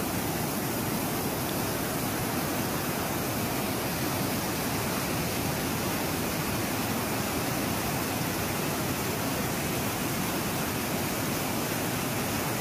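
Fast mountain river rushing over boulders in white-water rapids: a steady, unbroken rush of water.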